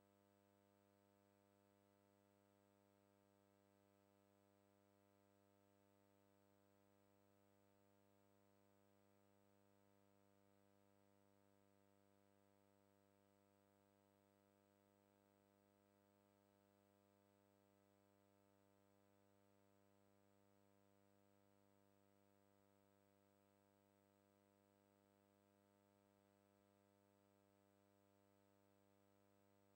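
Near silence: only a faint, steady hum with no other sound.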